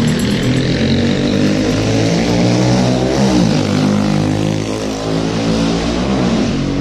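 A motor vehicle's engine running close by, its pitch dipping and rising again about halfway through.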